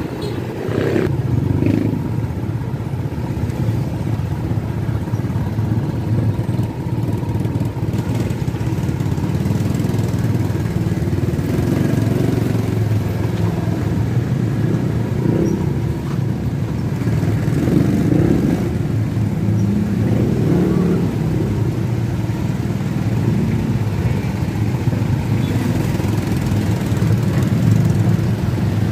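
Motorcycle engine running while riding, with steady rumbling wind and road noise over the microphone.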